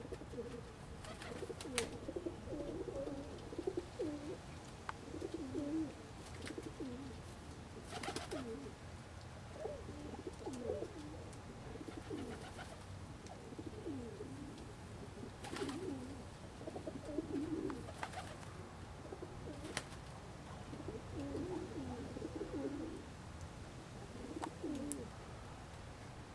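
Domestic pigeons cooing: repeated low, warbling coo phrases come in clusters throughout, with a few short sharp clicks in between.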